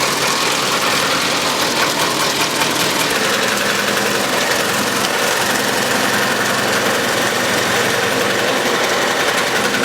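Wood shaving machine running with a loud, steady mechanical noise.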